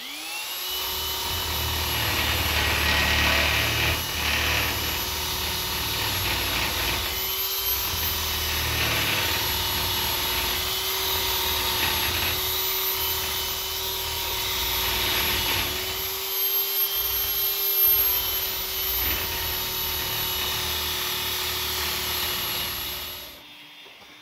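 East German Eibenstock electric polishing machine fitted with a wire cup brush, spinning up and running with a steady motor whine while the brush scrubs rust off a metal surface; the scrubbing noise swells and drops as the brush is pressed on and lifted. This is its test run after repair, and the sound cuts off about a second before the end.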